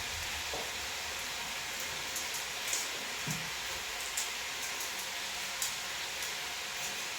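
Food sizzling steadily in a pot on the stove, with a few faint clicks now and then.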